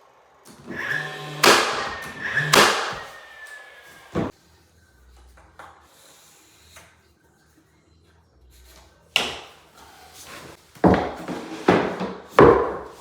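Sharp knocks and clatters of MDF skirting boards being handled and fitted: a few single knocks in the first four seconds, then a quick run of them near the end.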